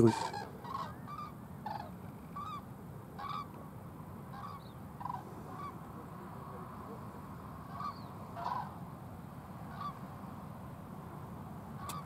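A migrating flock of common cranes calling in flight: short, pitched calls from many birds, one every second or so.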